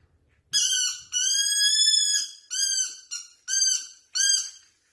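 Rubber squeaky ball squeaking repeatedly as a dog mouths it: a run of high, clear squeaks about half a second apart, the second one drawn out for about a second.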